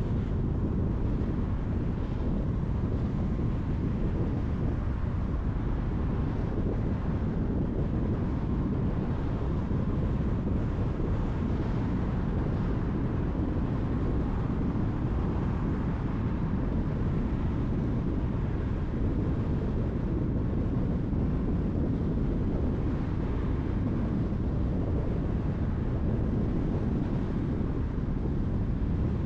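Steady road noise of a car driving at speed: an even low rumble of tyres and wind that does not change.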